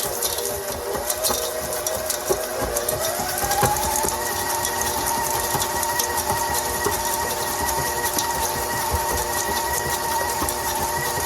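Electric mixer running steadily as it mixes cookie dough, its motor whine stepping up in pitch about three seconds in as the speed is turned up.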